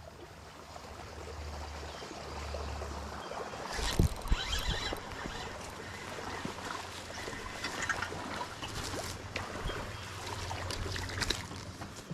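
Water running over a small creek spillway, a steady rush, with a cluster of knocks and clatter about four seconds in.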